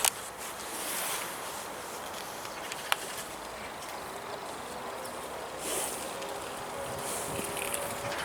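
A horse snuffling close to the microphone: a few short puffs of breath with rustling between them, and a couple of sharp clicks.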